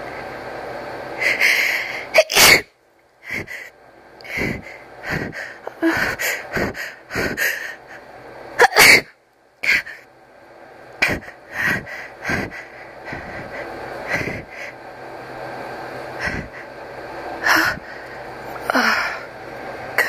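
A person sneezing repeatedly, with short sharp breaths between the sneezes. The two loudest sneezes come about two seconds in and near nine seconds.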